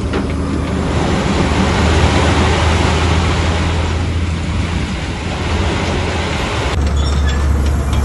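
Komatsu bulldozer's diesel engine running steadily under load, a low drone with rough grinding and clatter from the crawler tracks and pushed stone. The rough upper noise changes abruptly near the end.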